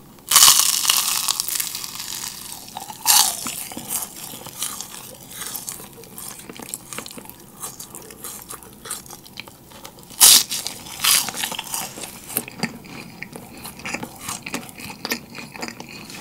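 Yugwa, a Korean fried glutinous-rice cracker coated in puffed rice, being bitten into and chewed close to the microphone: a loud, very crisp crunch right away that crackles on as the piece breaks up. Further sharp bites come about three seconds in and at ten and eleven seconds, with lighter crunchy chewing between.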